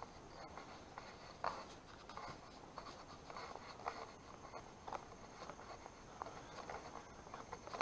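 A walker's footsteps scuffing along a paved woodland path, a soft scrape roughly every half second to a second. A faint steady high whine runs underneath.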